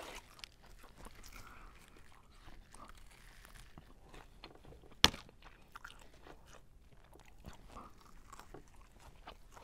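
Faint chewing and crunching of a fried chicken thigh, with one sharp crack about five seconds in.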